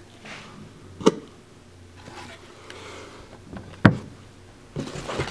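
Wooden skateboard decks being handled and set down on a counter beside a cardboard box. Two sharp knocks, one about a second in and a louder one near four seconds, then rustling near the end.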